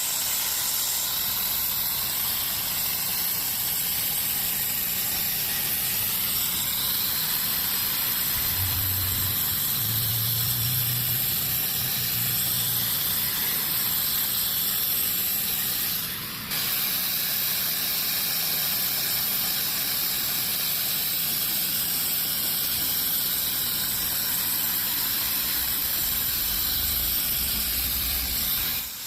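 Handheld power polisher running steadily on sandstone: a continuous hiss with a thin high whine over it. It dips briefly about halfway through, then carries on at the same level.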